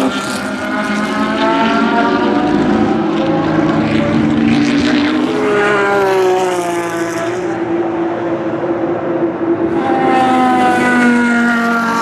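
Lamborghini Gallardo GT3 R-EX race car's V10 engine at full throttle, accelerating hard. Its pitch climbs in several long rising sweeps.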